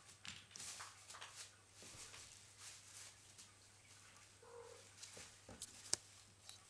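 Faint rustling and light pattering of kittens playing, scampering on a hard floor and wrestling on a plastic bag. A brief high note comes about four and a half seconds in, and a sharp click near six seconds.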